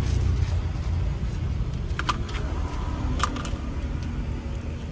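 Steady low rumble of road traffic, with a couple of faint short clicks about two and three seconds in.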